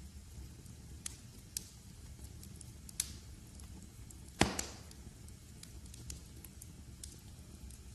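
Wood fire crackling over a low steady rumble, with scattered sharp pops; the loudest pop comes a little past halfway.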